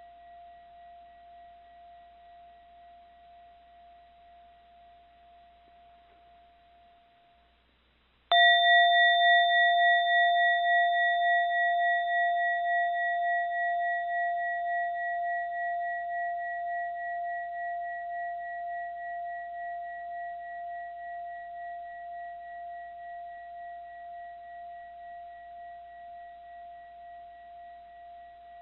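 Mindfulness bell: the last of an earlier stroke's ring fades out, then the bell is struck once about eight seconds in. The new tone rings on with a slow, wavering pulse, dying away gradually.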